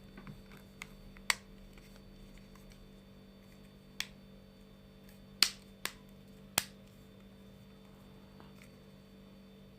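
Sharp plastic clicks, about six at irregular intervals, as a Samsung Galaxy A71's housing clips snap into place while the cover is pressed shut around its edges; each click means a clip has seated and the cover is closing. A faint steady hum underneath.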